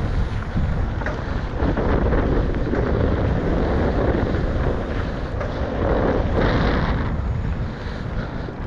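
Wind rushing over the microphone on a mountain bike while it is ridden down a trail, a steady noisy rush with heavy low rumble that eases near the end.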